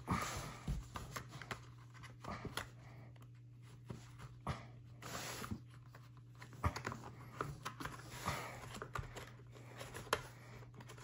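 Cardboard board-game coin tray being handled as its punchboard lid is pressed into place: scattered light taps, scrapes and creaks of cardboard against cardboard. A faint steady low hum runs underneath.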